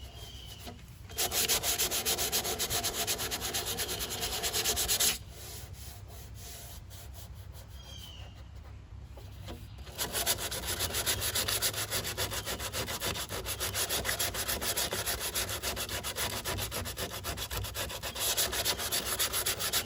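Electric palm sander with coarse paper sanding down body filler on a car panel, in two spells: from about a second in for four seconds, then again from about ten seconds in onward.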